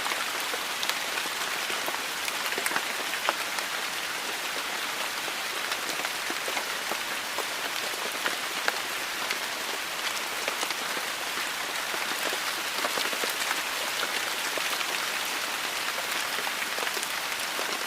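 Steady rain falling, with a constant hiss and many sharp individual drops pattering on a surface.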